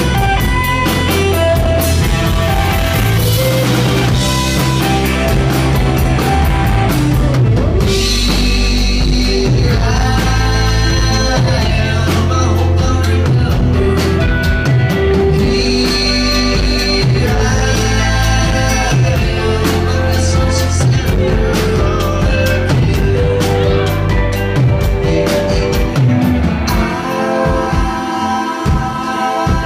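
Indie rock band playing live: electric guitars, bass and drum kit with sung vocals. About 27 seconds in, the drums and bass drop away, leaving guitar and voices.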